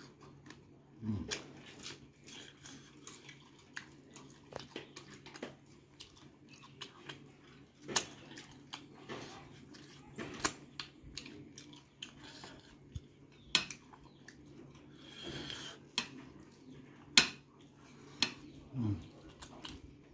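A person eating chicken feet with his hands, close to the microphone: scattered sharp smacks and crunches of chewing and biting, with two short falling hums, one near the start and one near the end.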